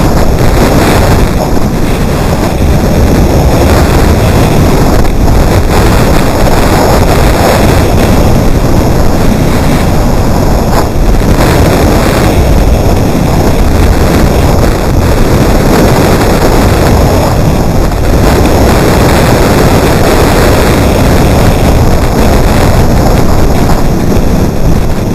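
Loud, steady wind rushing over an action camera's microphone during a downhill ski run, mixed with the skis sliding on snow.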